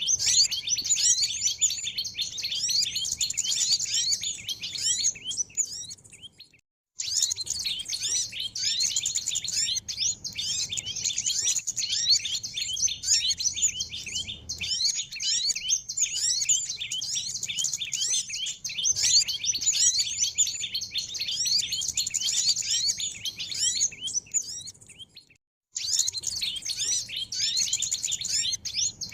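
A dense chorus of many small birds chirping and twittering together, a bird-lure (pikat) recording of small songbirds. It breaks off to silence for about half a second twice, about six and a half and twenty-five seconds in, then resumes.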